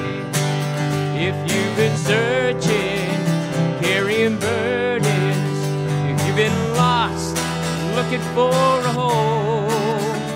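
Acoustic guitars strummed and a cajón played in an upbeat country-gospel song, with a voice singing a wavering melody over them.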